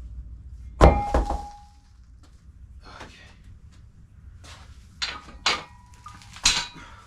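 A heavy double thud about a second in, with a short metallic ring, then three sharper knocks near the end, two of them also ringing briefly.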